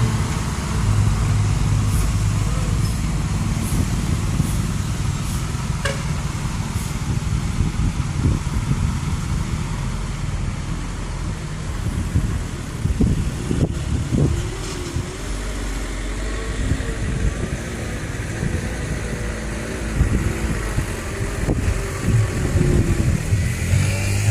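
Heavy diesel machinery engine running with a steady low rumble, with irregular knocks and clanks and a wavering whine in the middle.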